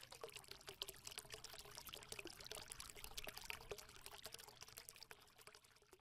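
Faint crackling, trickling sound effect: a dense patter of tiny clicks over a faint steady tone, fading out near the end.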